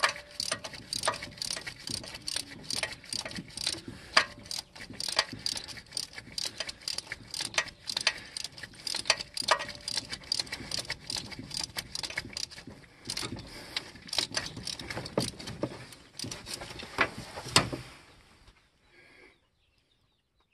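Hand ratchet and socket turning a rusted exhaust manifold bolt: rapid, irregular ratchet clicks and metal clinks, several a second, which stop a couple of seconds before the end.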